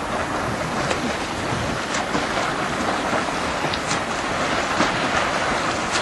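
Choppy sea water sloshing and splashing close by, with wind on the microphone and a few small sharp splashes now and then.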